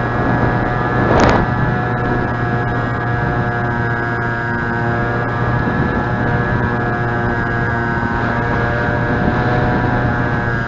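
Motor and propeller of a three-channel high-wing pusher RC plane running at steady speed, a constant whine made of many steady tones, with wind buffeting the microphone and a brief gust about a second in.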